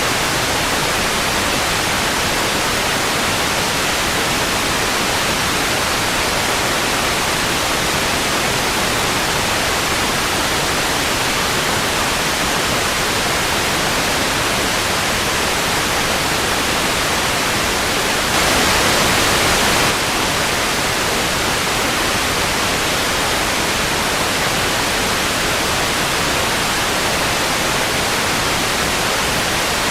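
Old analogue TV static: a steady, even hiss of white noise. It gets briefly louder for about a second and a half, about two-thirds of the way in.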